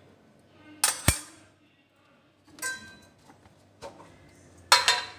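A steel spoon clinks against a large stainless-steel mixing bowl, two sharp ringing taps about a second in and another a moment later, as spice is knocked off it. Near the end, a short scraping rattle as a plastic lid is pulled off a spice container.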